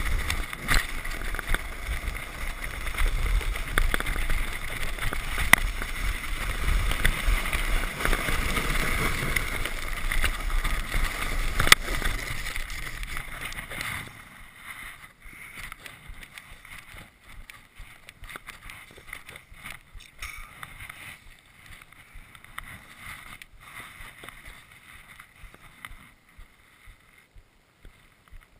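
A Merikan Missile plastic sled sliding fast down a packed-snow trail: a continuous rushing scrape of the hull over snow, with wind rumbling on the microphone and a few sharp knocks. About fourteen seconds in the slide stops abruptly, leaving only faint crunches and handling clicks.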